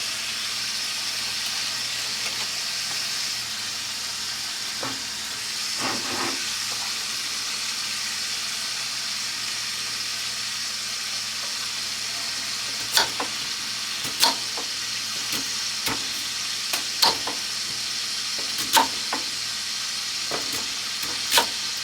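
Chicken breasts sizzling in a cast iron skillet, a steady frying hiss. In the second half, sharp knocks come roughly once a second over the sizzle.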